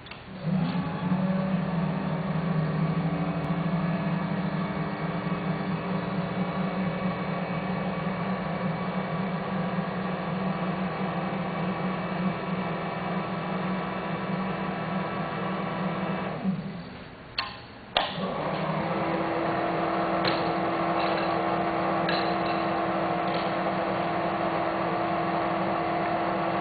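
Powered rotary draw tube bender running steadily as it bends a 1-inch 4130 chromoly tube into a 180° loop. Its motor drone stops about 16 seconds in, with two sharp metal clicks, then starts again with a higher steady tone.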